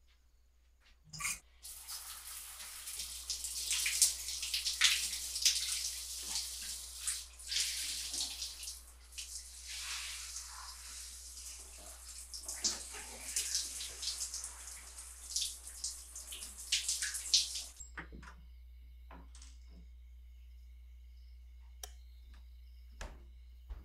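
Shower running, water spraying and splashing onto a person's head and body. It starts just after a short click about a second in and cuts off suddenly well before the end, leaving a few faint clicks.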